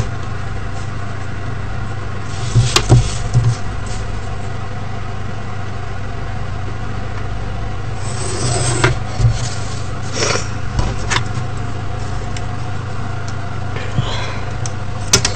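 Steady low hum from the recording, with a few short scrapes and rustles of paper and a plastic ruler being handled on a table, including a pencil line drawn along the ruler about eight seconds in.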